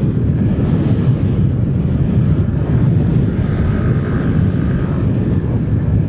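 Motorcycle riding on the road, heard through an action camera's external mic: a steady low rumble of wind and engine, with a faint higher whine for a second or so in the middle.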